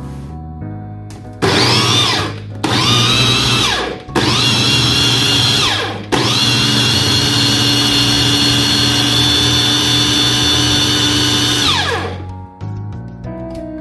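Electric mini chopper's motor whining as it crushes boiled, peeled tomatoes to a sauce. It is pulsed three times briefly, then held for about six seconds, and its pitch falls away each time it stops.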